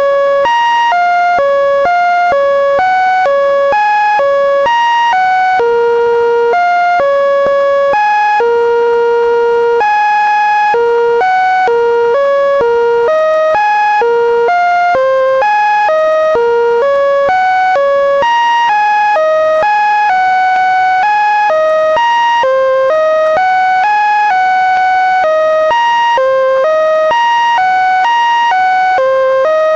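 Computer-generated electronic tones stepping from one pitch to another, a few notes a second with some held longer, in an unbroken melody-like run: the Linux kernel's data played as sound.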